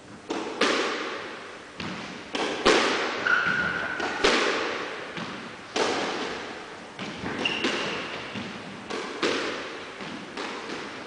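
Squash rally: the ball cracks off rackets and the court walls about a dozen times at an uneven pace, each hit ringing out in the echoing court. Two brief high squeaks sound in between.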